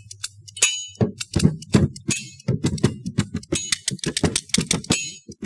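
Foley props being struck and clicked to make music: a quick, dense run of sharp clicks and knocks, some with a short high hiss or ring.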